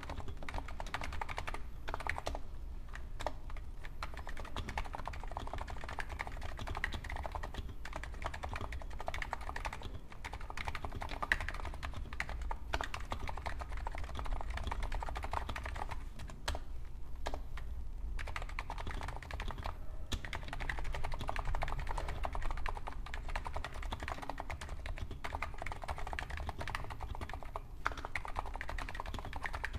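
Steady typing on a Hansung GTune CHL8 HappyTypist electrostatic capacitive keyboard with 50 g switches and stock keycaps: a dense run of key strokes with a few short pauses.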